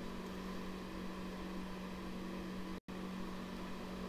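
Room tone: a steady low electrical hum under an even hiss, with the audio cutting out completely for an instant nearly three seconds in.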